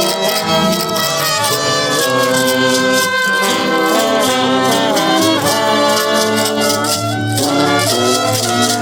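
A street brass band playing a tune live, with horns carrying the melody over steady hand percussion.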